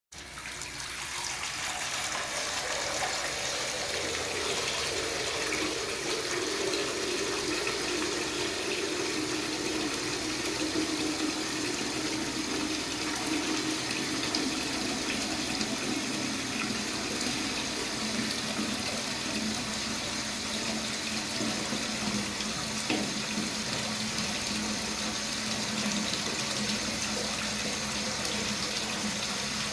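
Bath tap running full into a bathtub, the water splashing steadily into the tub. A hollow tone in the rush drops in pitch over the first several seconds and then holds low.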